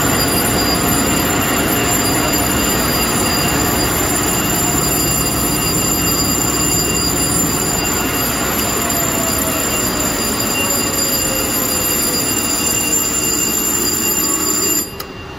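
Gordon-Piatt forced-draft burner firing on a steam boiler: a loud, steady roar of blower and flame with a few thin high whines. It cuts off abruptly near the end as the low-water cutoff opens the 3P interlock and shuts the burner down, leaving a quieter fan noise.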